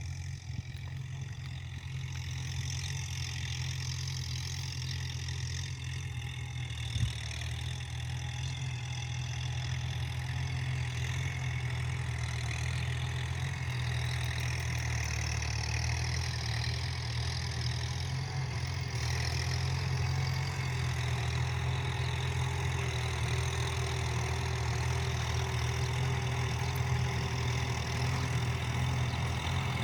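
Kubota tractor's diesel engine running steadily with a low drone while ploughing, with one short knock about seven seconds in.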